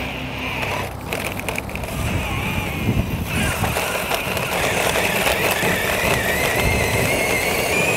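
Cordless drill motor whining in second gear as it drives a homemade scooter, with the wheels rumbling over asphalt. The whine wavers in pitch and grows slightly louder toward the end.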